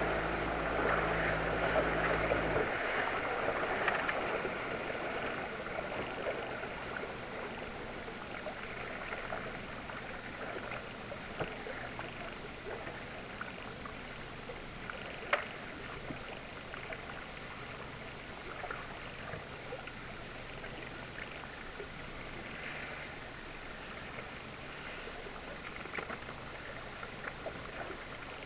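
Outboard motor on a small inflatable boat running slowly, cutting off suddenly about two and a half seconds in. After that, water sloshing and lapping against the drifting hull, with a few light clicks and knocks.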